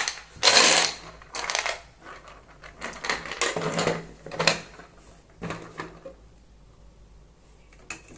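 Plastic letter cubes of a Boggle-style word game clattering inside the closed grid tray as it is shaken, settling the cubes into their slots. A string of short rattles over the first six seconds, then it goes quiet.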